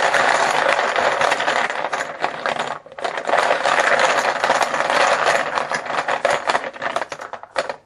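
Hand stirring a pile of poker chips in a small black pail, a dense clattering rattle with a short break about three seconds in: chips being mixed to draw one at random.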